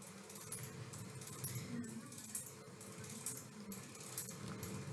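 Kitchen knife slicing okra into thin rounds on a wooden cutting board: faint, quick taps of the blade on the board, about two or three a second.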